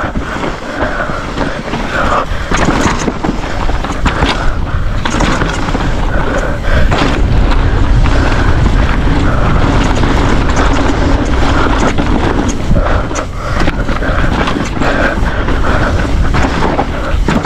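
Mountain bike ridden fast down a dry dirt downhill trail, heard from a bike-mounted camera. Wind buffets the microphone while the bike rattles and knocks over bumps and loose dirt, with the rumble heaviest about halfway through.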